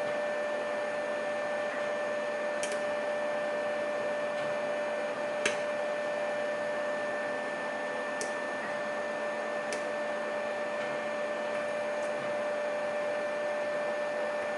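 Steady machine hum with a constant tone, and four faint, sharp clicks spread through it, from picking tools working the pins of a lock.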